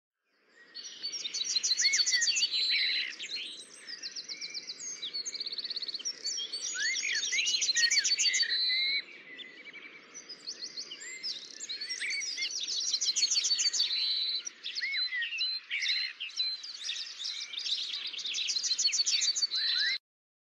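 Several songbirds singing together: a dense chorus of rapid high trills and short rising whistles over a faint background hiss. It fades in at the start and cuts off abruptly near the end.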